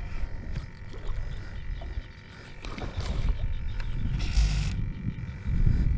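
Uneven low wind noise buffeting the microphone, with brief rustles and clicks from hands handling a baitcasting reel and its line, the wind louder in the second half.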